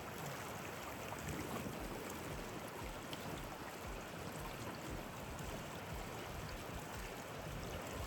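Rocky Fork Creek flowing steadily, a continuous rush of water.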